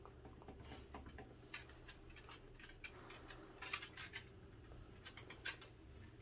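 Dachshund eating raw chicken: quiet, irregular crunches and clicks of teeth on meat and bone, thickest in a cluster a little past the middle.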